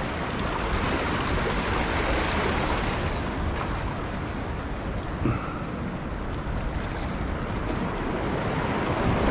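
Waves washing and sloshing against the boulders of a rock breakwall, with wind buffeting the microphone as a low rumble. A brief knock about five seconds in.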